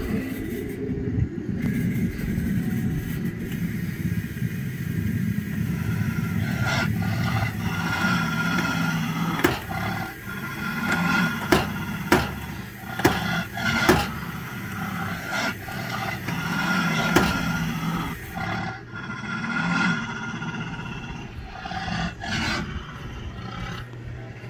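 Animatronic GrillMonster prop playing a growling roar sound effect through its speaker while its pneumatically driven grill-lid mouth works, with about six sharp clanks between nine and seventeen seconds in.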